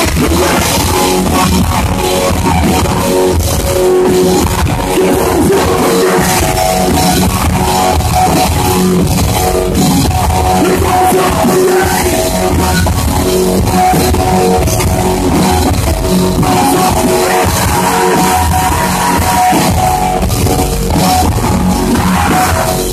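Live rock band playing loud, with electric guitar and a drum kit, recorded from the crowd on a phone with rough sound quality.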